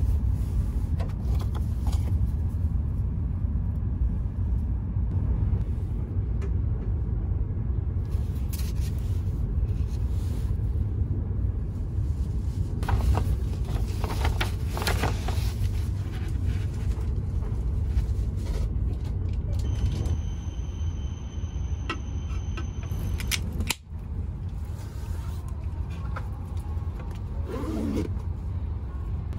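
Steady low rumble of a Hokuriku Shinkansen bullet train running, heard from inside the passenger cabin. About halfway through, the pages of a paper booklet rustle as they are flipped.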